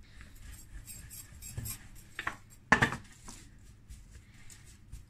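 Light kitchen clatter of dishes and utensils: a few scattered knocks and clinks, the sharpest a little under three seconds in.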